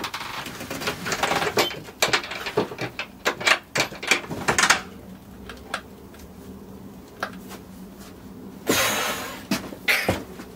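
Xpelair Taurus T10 fan's motor overvolted to about 2,000 volts from a microwave oven transformer and burning, giving off many sharp crackles and snaps over a faint electrical hum. The crackling stops for a few seconds, then a short rushing noise comes about nine seconds in, followed by more crackles near the end.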